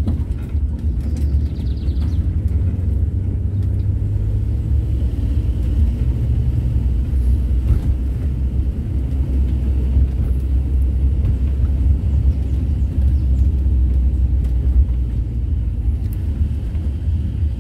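Volkswagen Kombi van driving, a steady low engine and road rumble.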